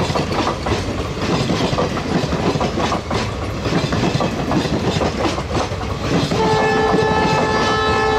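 Indian Railways passenger coaches rolling past close by, wheels clattering over rail joints in a rapid clickety-clack. About six seconds in, a long steady locomotive horn note starts and holds.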